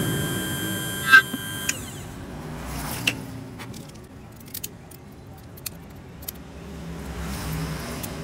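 Key-cutting machine's spindle motor whining steadily as it mills a duplicate dimple key, then shutting off suddenly about a second and a half in. After that come scattered light metallic clicks and taps as the key and clamp are handled.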